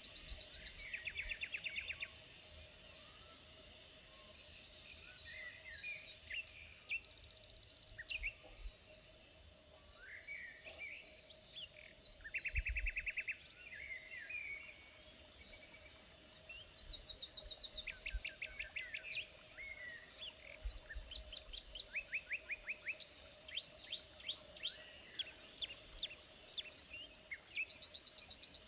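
Several wild birds singing and calling, with short chirps and rapid trills of evenly repeated notes coming one after another. A few brief low rumbles of wind sound under them.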